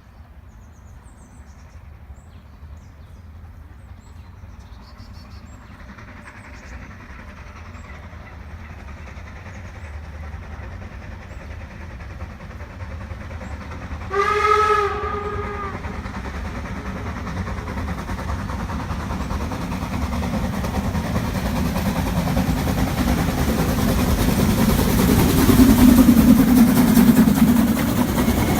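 Narrow-gauge 2-10-2 steam locomotive No 99 7239 approaching, its sound growing steadily louder throughout. About halfway it gives one short whistle blast. Near the end, as it draws close, the running noise and steam hiss become loud.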